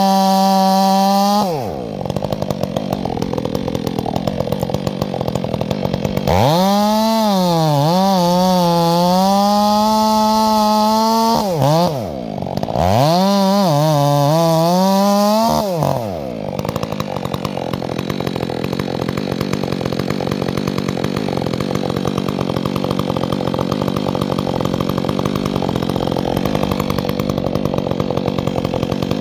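Chainsaw engine at full throttle that drops to idle about two seconds in. It is then revved up twice, the pitch sagging and recovering as if under load in a cut, and settles back to a steady idle after about sixteen seconds.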